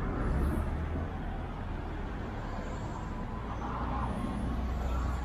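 City street traffic: steady road noise with the low rumble of passing vehicles, a little louder just at the start and again near the end.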